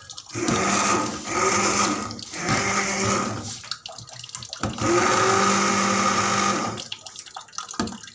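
Hand-held stick blender switched on and off in several bursts, its motor whine rising briefly as each burst starts, churning through soft cooked strawberries and sugar to purée them into jam. The longest burst comes near the end.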